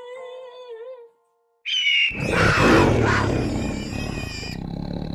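A wavering pitched wail fades out about a second in. After a short silence comes a loud creature roar sound effect: a rough, noisy roar with a high screech gliding downward over it, lasting to the end.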